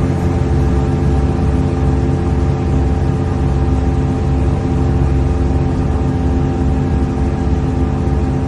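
Car engine running at steady revs: a constant drone that neither rises nor falls.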